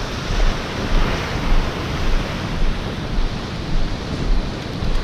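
Ocean surf washing and breaking in a steady rush, with wind buffeting the microphone in low gusts about twice a second.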